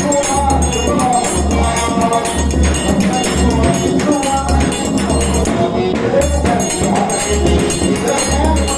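Forró dance music with singing, percussion and a steady thumping bass beat.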